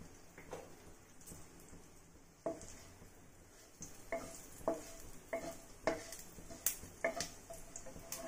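Wooden spatula stirring cumin seeds in hot mustard oil in a non-stick kadhai: a series of light knocks and scrapes against the pan from a couple of seconds in, over a faint sizzle of the seeds frying.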